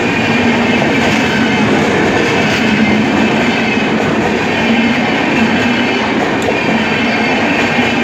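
Pawan Express passenger coaches passing at speed a few metres away: a steady, loud rush and rumble of wheels running on the rails.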